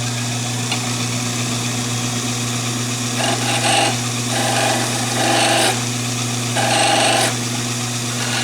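Conover wood lathe running with a steady motor hum, while a turning tool is brought against the spinning chair-leg blank in four short cuts from about three seconds in, smoothing the rough shoulder left by the parting tool.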